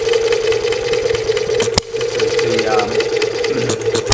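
Small model hit-and-miss engine running on fuel vapor drawn from a jar tank, a steady mechanical clatter of rapid ticks over a constant hum. It breaks off briefly with a knock a little under two seconds in.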